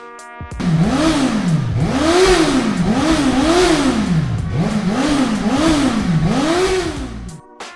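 Motorcycle engine revved again and again, about seven throttle blips, each rising in pitch and falling back.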